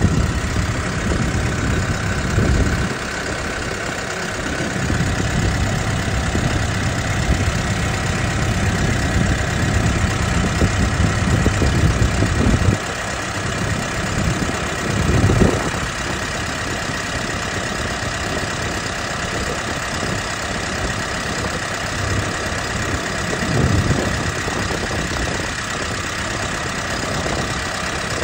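Diesel engine of a JLG 1255 telehandler idling steadily.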